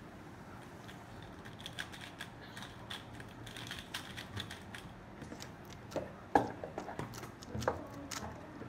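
Plastic 3x3 speedcube being handled and turned: a faint, irregular run of small clicks and clacks, with a louder knock about six seconds in and another near the end.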